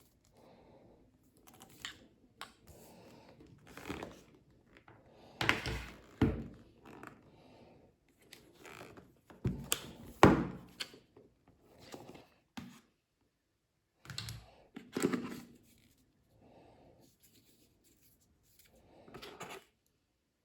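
An iPad and its box being handled: a string of knocks, taps and scrapes with short quiet gaps, the loudest knock about halfway through.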